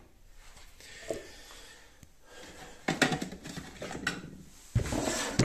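Hard plastic electrical housings handled on a workbench: a few scattered light clicks and knocks, then a louder knock and rustle near the end as a box is picked up or set down.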